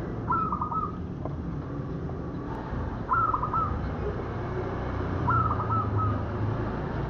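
Zebra dove (perkutut) cooing: three short phrases of quick staccato notes, about two and a half seconds apart, over a steady low rumble.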